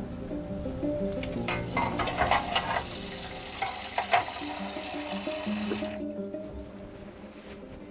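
Water running from a camper van's kitchen sink tap during washing up, with a few clinks and knocks of dishes around two and four seconds in. The water cuts off suddenly about six seconds in. Background music plays throughout.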